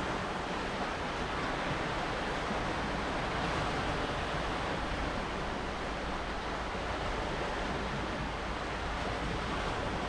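Lake Superior waves washing onto a rocky shoreline, a steady rush of surf mixed with wind.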